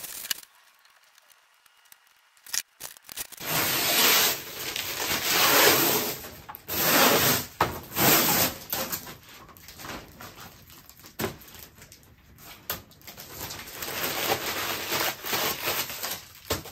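Clear plastic packaging crinkling and rustling as it is pulled off a semi-flexible solar panel and bunched up by hand. It comes in loud surges that start about three seconds in, after a quiet start with a few small clicks.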